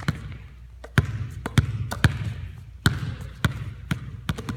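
Basketballs dribbled low in a figure 8 dribble between the legs: irregular bounces a few times a second, coming quicker near the end.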